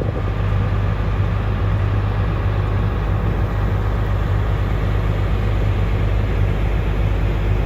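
Combine harvester running steadily while cutting grain, a constant low engine hum with machine noise over it.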